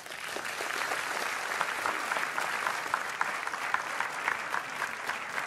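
Audience applauding: dense clapping that breaks out all at once and keeps up steadily.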